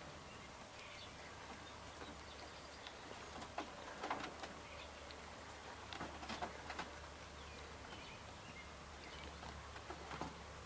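Faint outdoor ambience: scattered short bird calls and a few light clicks over a low steady hum.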